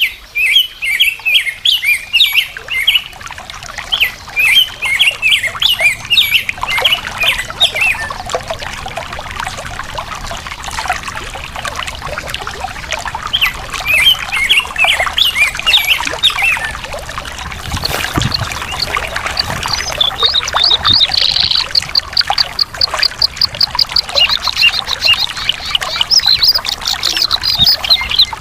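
Songbirds singing in quick chirping phrases over a steady trickle of flowing water. In the last third, a bird gives a long, fast run of evenly repeated high notes.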